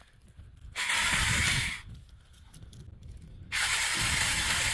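Mini chainsaw cutting into wood in two short bursts of about a second each, the chain rasping through the cut.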